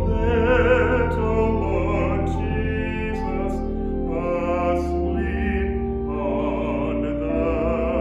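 A solo voice singing slowly with vibrato, in phrases of a couple of seconds, over steady held low accompaniment notes.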